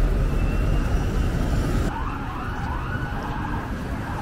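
Low traffic rumble, then from about two seconds in an emergency vehicle siren wailing, its pitch rising and falling.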